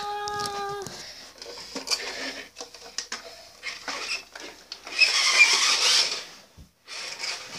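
Handling noise from toys and the camera being moved at close range: scattered clicks and rubbing, with a loud rustle lasting about a second about five seconds in. A brief held voice note sounds right at the start.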